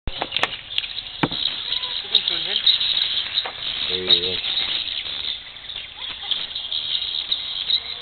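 Dense, continuous high twittering of swiftlets circling a swiftlet house, with a few sharp clicks in the first second or so and a brief voice about four seconds in.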